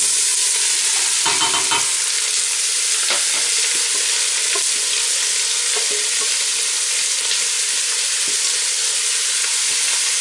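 Diced onions sizzling in hot melted clarified butter in a large stainless steel pot: a steady frying hiss that begins as the onions hit the fat, with a few light knocks along the way.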